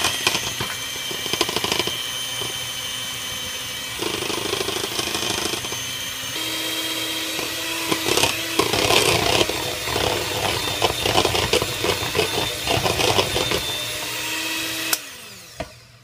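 Electric hand mixer beating cake batter in a ceramic bowl, its motor whining steadily, with the pitch shifting about four and six seconds in. The beaters clatter against the bowl through the middle, and the mixer switches off about a second before the end, its whine dropping away.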